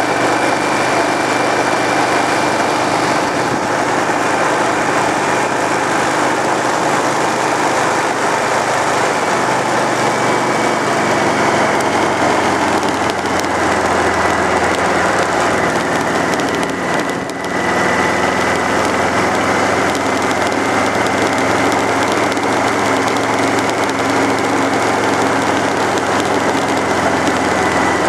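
Honda VTX 1300's V-twin engine running steadily as the motorcycle rides along, under a steady rush of wind noise. The loudness dips briefly about two-thirds of the way through, then picks up again.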